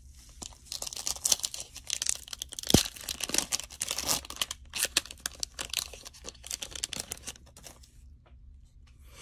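Cellophane wrapper of a trading-card pack crinkling and tearing as the cards are pulled out: a dense run of crackles with one sharper snap about three seconds in.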